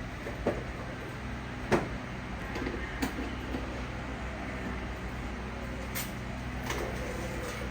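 Steady low machine hum of an indoor space, with a few scattered sharp knocks and clicks, the loudest about two seconds in.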